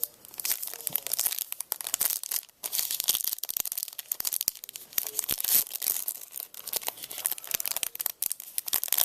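Plastic wrapper of Yu-Gi-Oh trading cards being crinkled and torn open by hand: a dense, continuous crackle of small clicks, with a brief pause about two and a half seconds in.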